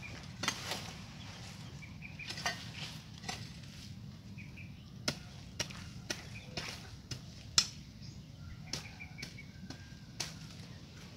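Hoe blade chopping into soil and weeds, irregular strikes every half second to a second or so, one sharper strike about three quarters of the way through.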